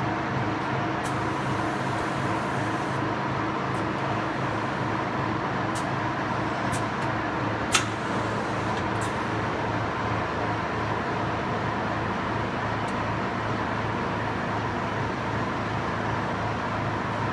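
Machinery running with a steady hum and even noise, with a few light clicks and one sharp click about eight seconds in.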